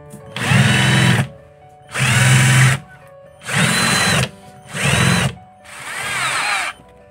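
A 12-volt cordless lithium-ion drill-driver runs in five short bursts, driving screws and drilling into wood. Its motor whine rises in pitch as the trigger is squeezed and drops away on release.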